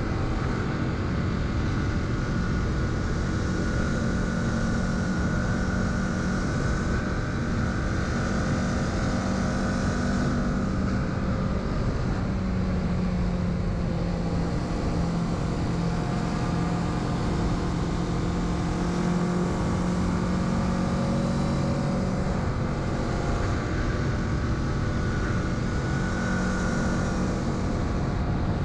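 Kawasaki Z650's parallel-twin engine running steadily under way, over a constant rush of wind. The engine note changes once, about eleven seconds in, then holds steady again.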